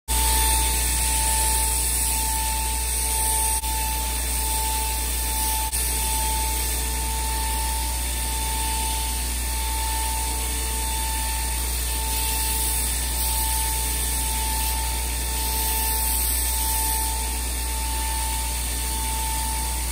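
Belt grinder running steadily, a constant whine over a low motor hum, while green G10 handle scales with pins fitted through them are held to the belt.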